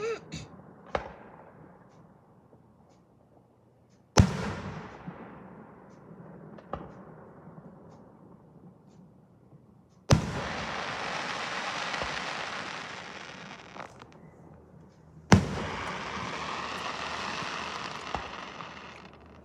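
Fireworks going off: a sharp bang about four seconds in that fades away slowly, then two more bangs about ten and fifteen seconds in, each followed by three or four seconds of dense crackling hiss.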